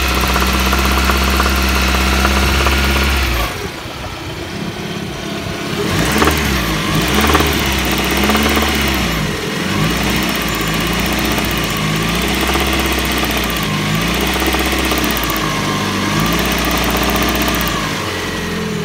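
Car engine running steadily, then revved up and down again and again. The owner is chasing an intermittent knock: it appears from about 2000 rpm and gets stronger as the revs rise, and he thinks it comes from the alternator side, perhaps valve noise. He also hears a second knock that he takes for piston knock.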